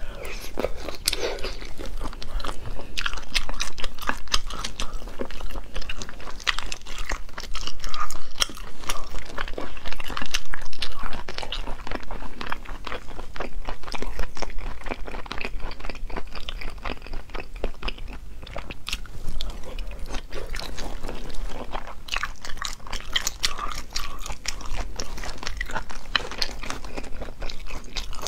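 Close-miked eating of sea snail meat in chili sauce: biting and chewing heard as a dense, continuous run of small clicks and mouth sounds, louder for a few seconds near the middle.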